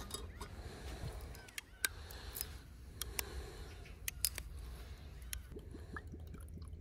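Scattered sharp clinks and taps of a spoon against a glass measuring jug as yeast is stirred into warm water, over a steady low rumble of wind on the microphone.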